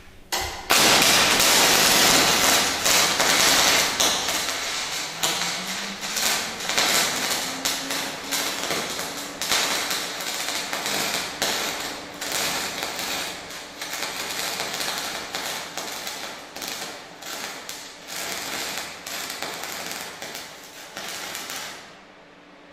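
MIG welding arc running on mild steel with copper-coated 0.75 mm wire from a DC welding machine: a dense, irregular crackle that strikes up about a second in and cuts off near the end.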